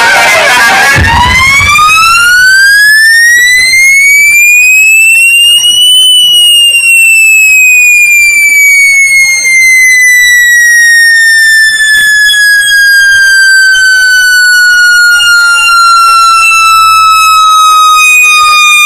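A loud, siren-like electronic tone played through a DJ sound system during a sound check. A single tone rises steadily for about six seconds, then glides slowly down for the rest.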